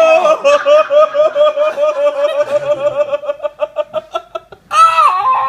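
High-pitched, rapid laughter, a quick string of 'ha-ha' pulses that tails off, then a short loud shriek near the end.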